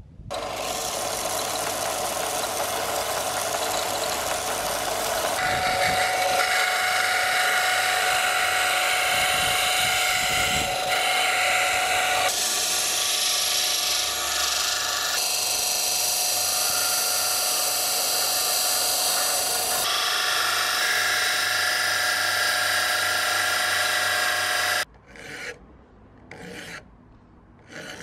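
Electric bench disc sander running with a flat metal knife part held against its abrasive disc, a steady loud grinding noise with a motor whine. About 25 s in it gives way to slow separate strokes of a hand file on the steel blade clamped in a vise.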